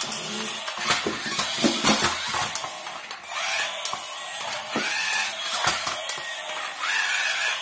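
Battery-powered toy stunt car: a small electric motor whirring, with many sharp plastic clicks and knocks and a few short tinny electronic tones from its sound-effects speaker.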